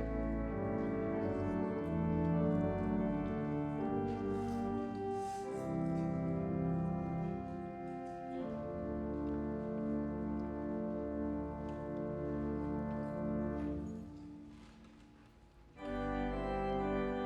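Organ music: slow, sustained chords that change every second or two. It fades out about fourteen seconds in, then comes back in suddenly under two seconds later.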